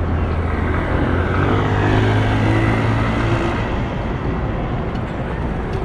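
Busy city street traffic at Herald Square: a constant wash of traffic noise, with a heavy vehicle's low engine hum standing out for the first three seconds or so before it drops away.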